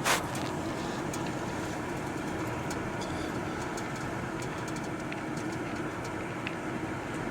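Steady road and engine noise of a car driving, heard from inside the cabin, with one sharp click right at the start.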